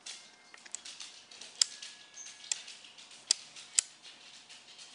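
Camcorder being handled while zoomed in: scattered small ticks and four sharp clicks in the second half, over a faint steady hiss.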